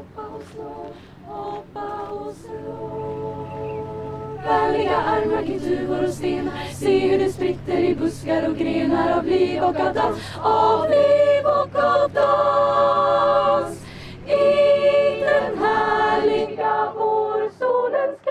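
Choir of young women singing together in sustained notes. Soft at first, it grows louder about four seconds in, with short breaks between phrases.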